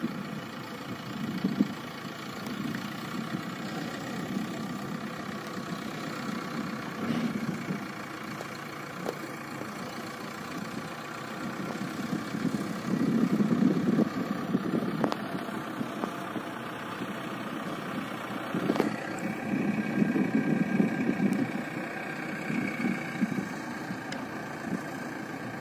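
JCB 3DX backhoe loader's diesel engine running throughout, getting louder twice as it revs under load while lifting and carrying a long pipe on its front bucket. A few short, sharp knocks stand out over the engine.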